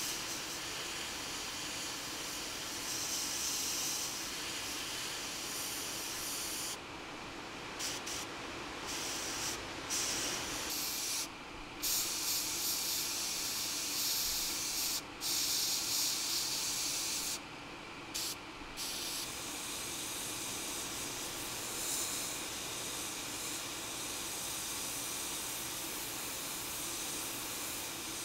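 Gravity-feed airbrush spraying black paint, a steady hiss of air and paint. The hiss cuts off briefly several times between about 7 and 19 seconds in, as the trigger is released between passes.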